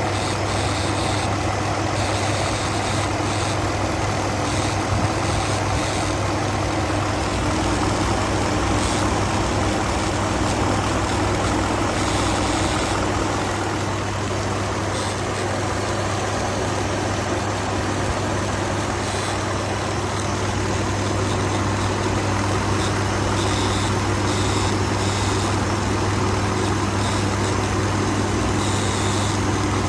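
2019 Ford F-150's 5.0 V8 engine idling with a steady buzz, the sound the owner is trying to trace along with a rough idle and intermittent stalling. A second steady tone joins the buzz about seven seconds in.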